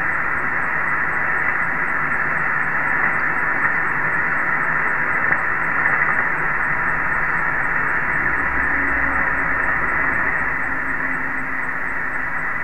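Radio receiver static on an upper-sideband channel around 27.580 MHz: a steady hiss cut off above a narrow audio band, with no voice coming through. A faint low hum rises under it about eight seconds in and fades about three seconds later.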